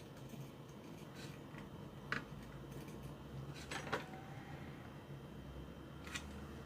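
Faint, scattered small clicks and taps of hand tools being handled at a workbench during soldering, a few seconds apart, over a low steady hum.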